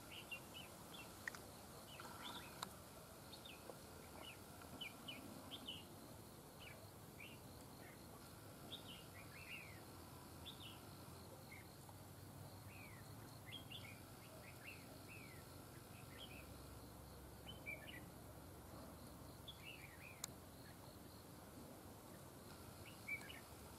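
Red-whiskered bulbuls calling faintly: scattered short chirping notes that come every second or so.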